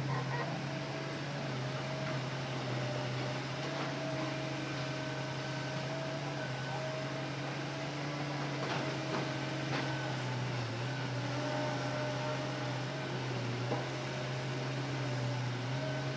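Hitachi Zaxis excavator's diesel engine running steadily, a low hum whose upper tones shift slightly in pitch, with a few faint knocks.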